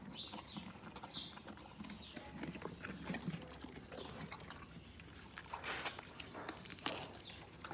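Horse chewing an apple: irregular wet crunches and munching, a couple of louder bites near the end.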